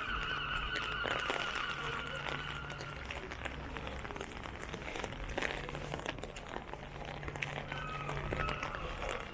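Rain pattering on an umbrella over wet town-street noise. A steady high tone sounds for the first three seconds and again briefly near the end, over a low hum.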